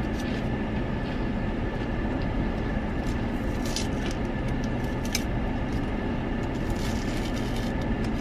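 Steady rumble of an idling car heard from inside its cabin, with a faint steady whine above it. A few brief clicks come through about three, four, five and seven seconds in.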